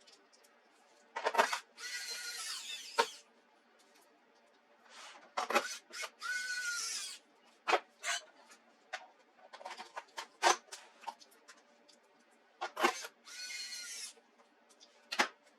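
Small electric screwdriver running in three short bursts of about a second each, with sharp clicks and taps between them.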